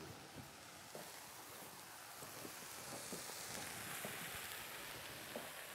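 Faint sizzling hiss of food frying in a pan, with a few soft clicks.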